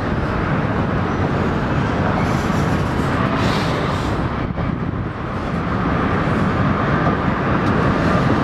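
Container freight train rolling steadily across a steel truss railway bridge, a continuous rumble that grows a little louder in the last few seconds.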